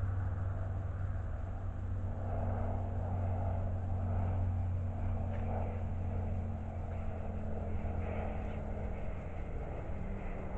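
A steady low engine drone, its hum dropping slightly in pitch near the end.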